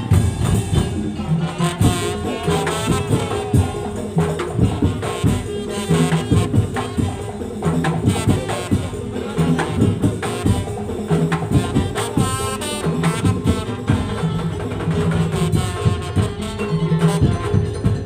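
A Madurese tong-tong (daul) ensemble playing: dense, driving beats of drums and bamboo slit drums with jingling and clanking percussion, under a long held tone and a wavering melody line.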